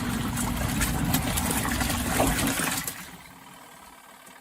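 ZENY portable twin-tub washing machine's wash motor and agitator churning soapy water and clothes with a steady hum and sloshing. About three seconds in it stops as the agitator pauses before reversing direction in its back-and-forth wash action.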